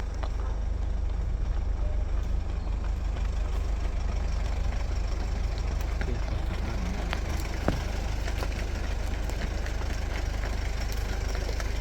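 Steady low rumble of a car's engine and road noise heard from inside the moving vehicle, with a single sharp click about eight seconds in.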